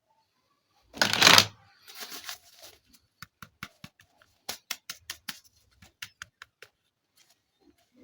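Plastic toy packaging handled in an unboxing: a short loud rustle and crinkle about a second in, then a quick run of sharp plastic clicks and taps, about three or four a second, fading to a few faint ticks near the end.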